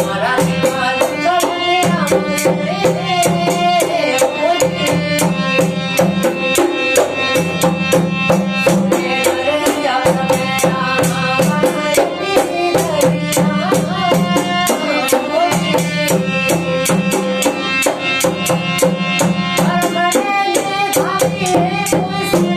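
Instrumental passage of a desi bhajan: dholak drumming in a steady beat under fast, even jingling percussion and a wavering melody line.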